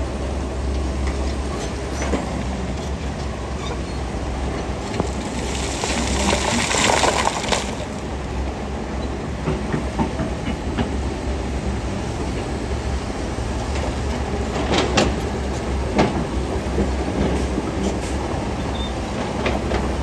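Heavy diesel earthmoving machinery at work moving stone fill: a steady low engine rumble with rattling and clanking, a rush of noise lasting about two seconds near a third of the way in, and a few sharp knocks later on.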